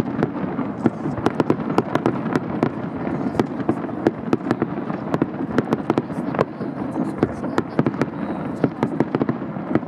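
Fireworks going off in quick succession: many sharp pops and crackles, several a second, over a steady background of crowd voices.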